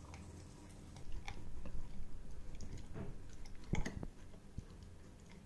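Labrador puppy chewing a dental chew stick: irregular crunches and clicks that start about a second in, the loudest just before four seconds in, then die away.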